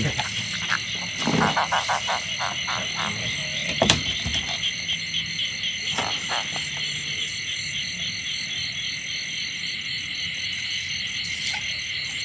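A dense chorus of frogs croaking steadily, with a short run of sharper rapid clicks about a second in.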